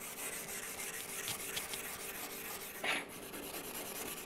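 Small hand wire brush scrubbing fast back and forth along the beveled edge of a cold-rolled steel plate: a steady scratching, with one brief louder scrape about three seconds in. It is cleaning the mill oil off the edge to bare metal before TIG welding.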